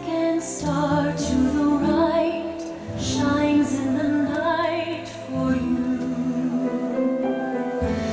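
Show music: a singing voice holding wavering notes over long, low bass notes, with a few high shimmering swells.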